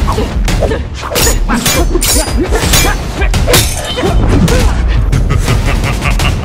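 Fight-scene soundtrack: a heavy, driving music score with a rapid run of sharp hit and impact sound effects laid over it, and short vocal grunts between the hits.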